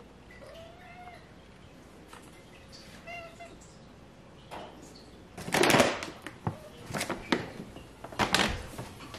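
A cat meows twice, first about half a second in and again about three seconds in. Then a plastic bag of dry cat food rustles loudly, followed by short bursts of kibble rattling in a plastic scoop.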